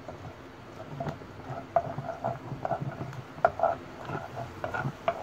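Ginger-garlic paste sizzling and spluttering in hot oil in a non-stick frying pan, stirred with a wooden spatula that scrapes and taps against the pan, with a few sharp clicks.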